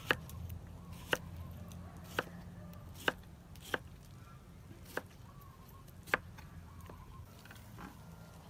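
Kitchen knife slicing cucumber on a wooden cutting board: seven sharp knocks of the blade on the board, about one a second, stopping a little after six seconds in.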